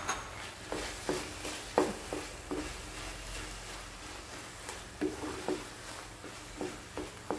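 A wooden spatula stirring thick chili-and-garlic paste in oil in a nonstick frying pan, with irregular soft knocks and scrapes against the pan over a faint steady sizzle.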